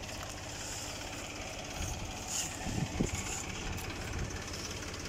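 Steady low engine-like hum, with a brief rustle of palm fronds about two and a half seconds in as an elephant feeds on them.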